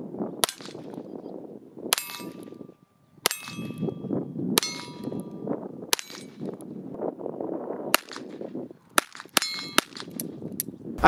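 Six gunshots from a Heritage Rough Rider .22 LR single-action revolver with a 16-inch barrel, fired one at a time about every one and a half to two seconds, several followed by a short metallic ring. About nine seconds in comes a quick run of small metallic clicks.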